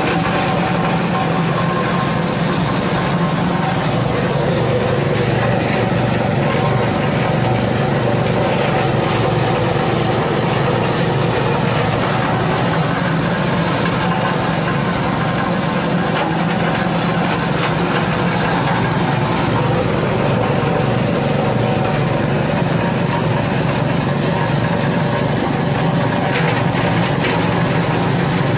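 Small engine driving a coconut-husk grinding mill, running steadily under load as it shreds husk into coir fibre and cocopeat, with the engine noise and the mill's grinding blended into one continuous sound.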